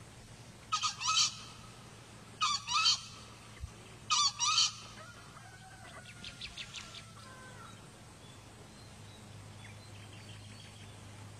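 Male green junglefowl crowing three times, about a second and a half apart, each crow a hoarse, shrill two-part call.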